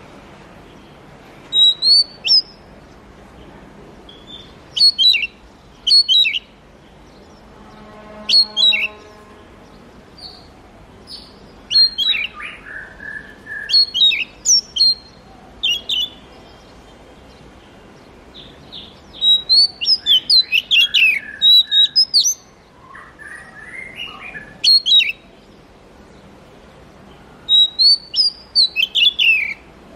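Oriental magpie-robin singing: loud, varied whistled phrases of quick rising and falling notes, delivered in clusters with pauses of a few seconds between them. There is one lower, buzzy call about eight seconds in.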